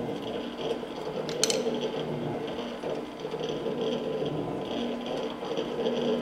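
Morey 12-inch vertical shaper running, its ram stroking the cutting tool up and down through the bore in a steady repeating cycle of about one stroke a second. It is cutting an internal keyway under power feed of a few thousandths per stroke. There is a sharp click about a second and a half in.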